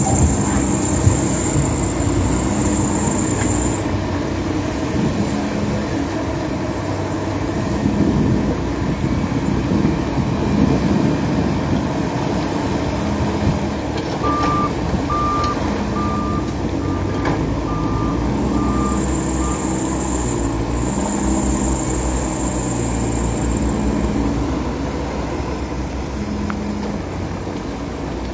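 Heavy earthmoving machinery's diesel engines running and working under load. A reversing alarm beeps about eight times, evenly spaced, around the middle.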